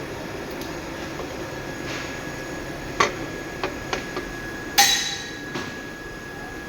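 A series of sharp metal knocks and clanks over a steady hum: a few quick knocks about three seconds in, then a louder clank that rings briefly, and a last softer knock.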